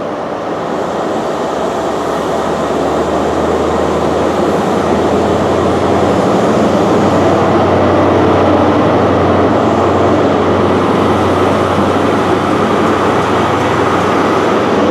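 A High Speed Train (InterCity 125) pulling out of the station, its Class 43 diesel power cars running under power. The rumble grows louder over the first several seconds as the train gathers speed, then holds steady.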